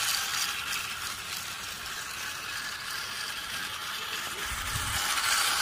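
Battery-powered plastic toy trains running on plastic track: a steady whirring rattle of small motors, gears and wheels. A low rumble joins in about four and a half seconds in.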